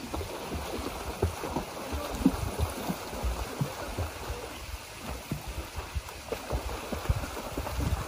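Water splashing in a rapid, irregular run as a person kicks their legs in a lake, pushing a line of inflatable pool floats along.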